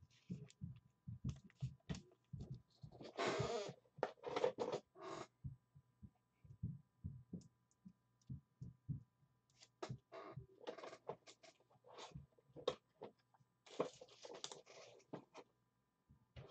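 Faint handling noise: scattered clicks and taps, with short rustles about three seconds in, again just after, and again near the end.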